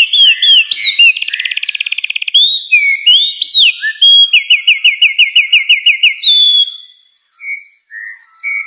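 A songbird singing loudly and continuously in varied whistled phrases. About a second in there is a fast trill, and from about 4 s a run of quickly repeated falling notes. Near the end it drops to softer, spaced calls.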